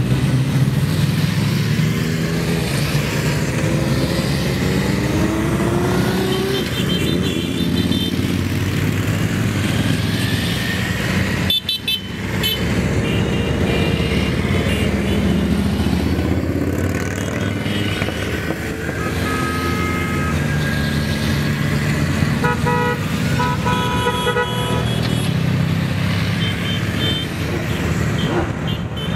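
A convoy of motor vehicles driving past, engines running and revving up, with short horn toots in several groups, most of them in the second half.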